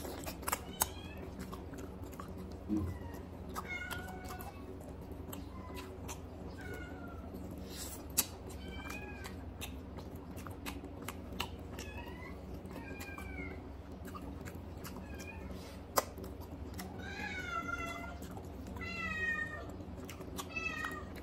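Hand-eating of rice and chicken curry: sharp wet mouth clicks and smacks, with many short high arched calls from an animal scattered throughout and bunched together near the end.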